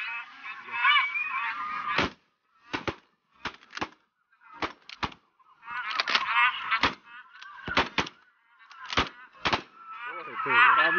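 A flock of bar-headed geese honking overhead, broken by a rapid, uneven volley of about a dozen sharp bangs from the hunters' shotguns over several seconds. The honking carries on between and after the shots.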